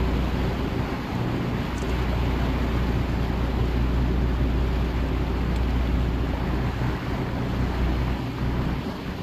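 Tour boat's motor running steadily with a low drone as the boat cruises, over the wash of water along the hull and wind on the microphone.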